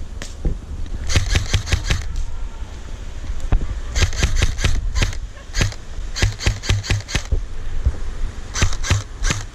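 Airsoft guns firing in several rapid bursts of sharp clicks, about seven or eight a second, with pauses between the bursts, over a steady low rumble.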